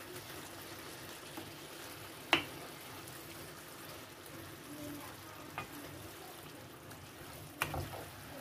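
Wooden spatula stirring fried eggplant through a thick yogurt-tomato masala in a frying pan, over a steady low simmering sizzle. The spatula knocks sharply against the pan about two seconds in, and twice more, more lightly, later on.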